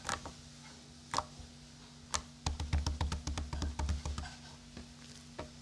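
A few sharp taps, then a quick flurry of light clicks and knocks with low thuds for about two seconds near the middle, and a couple more taps near the end.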